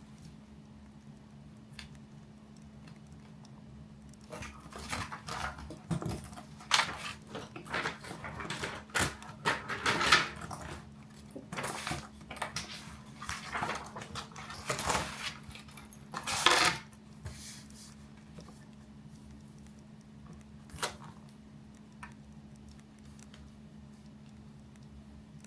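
A run of irregular clinks, clatters and rustles, like small hard objects being handled and set down, lasting about twelve seconds from about four seconds in, with one more click later, over a steady low hum.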